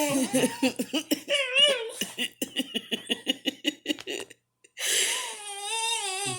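Person laughing hard in quick bursts, then a dog letting out a long, wavering whine of protest at being denied food.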